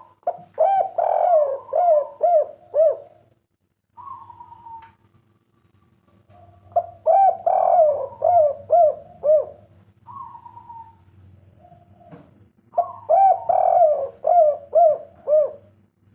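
Spotted dove (derkuku/tekukur) singing the 'kuk 3' song type. There are three cooing phrases, each about three seconds long and separated by short pauses. Each phrase opens with a drawn-out note and runs into a quick series of short coos that rise and fall. A faint steady hum sits underneath.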